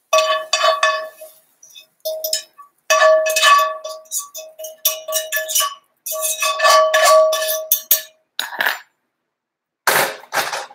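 A utensil scraping and tapping out the inside of a frying pan in repeated strokes as the cooked cauliflower rice is emptied out; the pan rings with a clear tone under each stroke. A duller clatter with no ring comes near the end.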